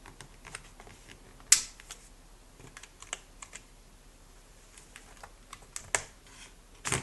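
Small plastic clicks and knocks as a Samsung N150 netbook's battery is unlatched and pulled out, with a sharp click about a second and a half in and a louder knock at the very end.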